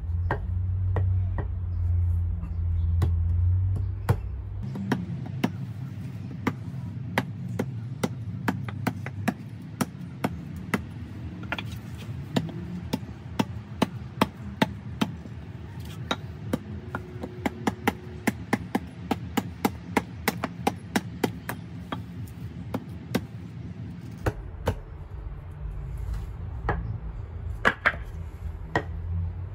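Prandi hatchet chopping a wooden board laid on a log stump: a long run of dozens of sharp chops, roughly two to three a second, starting about four seconds in and tailing off near the end. A low rumble fills the first few seconds before the chopping starts.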